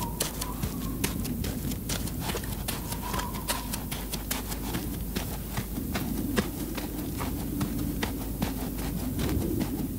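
Footsteps on a muddy dirt track: a string of irregular crunching, squelching steps over a steady low rumble.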